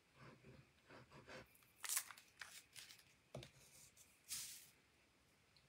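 Faint handling noises of strips of paper being picked up and moved on a craft mat during gluing: soft scattered rustles, a sharper paper swish about two seconds in, a small tap, and a longer rustle just past four seconds.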